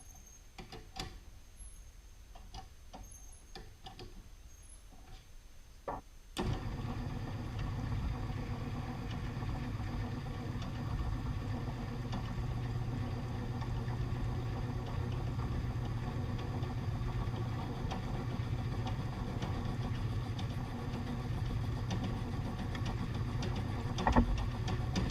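A few light clicks and knocks, then about six seconds in the motor of a Smithy Midas 1220 XL combination lathe-mill switches on and runs with a steady hum. A single sharp knock near the end.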